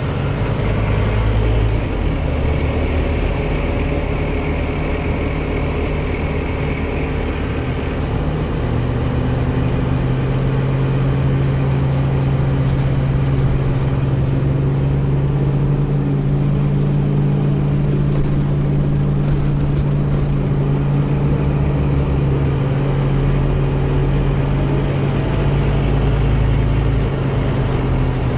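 Scania CN270UB city bus engine heard from inside the passenger cabin, running steadily with a higher whine over it. About eight seconds in the pitch changes and the whine drops away, leaving a steady drone.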